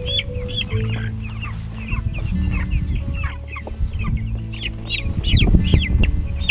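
Young meat chickens peeping in many short, overlapping calls as they are handled and set down into a pen, with a louder bout of rustling about five seconds in.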